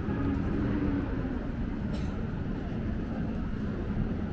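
Town street ambience: steady low rumble of passing traffic, with one short sharp click about two seconds in.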